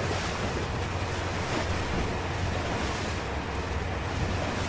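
Sea water rushing and foaming along the hull of a moving ferry, a steady wash with wind buffeting the microphone.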